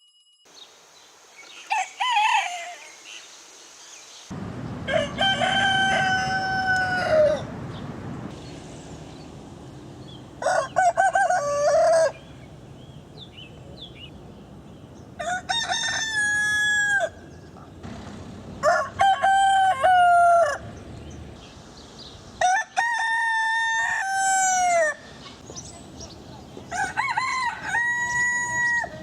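Roosters crowing one after another: about seven separate cock-a-doodle-doo calls, each a held note that drops away at the end. The background hiss changes from crow to crow because they are different recordings.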